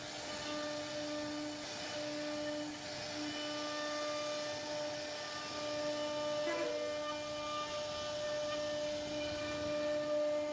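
CNC router spindle running while its bit carves a relief pattern into a wooden panel: a steady whining hum over a hiss of cutting. The pitch wavers briefly about six and a half seconds in.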